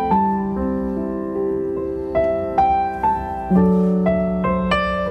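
Solo piano playing a slow melody of single notes, about two a second, over held lower notes.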